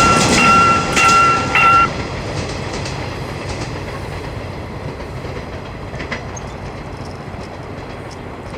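Level-crossing warning bell ringing in short repeated pitched strokes and stopping about two seconds in, over the running noise of a Saemaul-ho passenger train, which fades steadily as the train moves away. A few faint clicks come near the middle.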